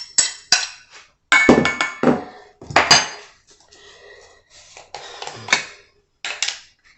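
Kitchen dishware and utensils knocking and clattering. A quick run of sharp taps comes first, then heavier clatter about one and a half seconds in, then softer scraping and handling.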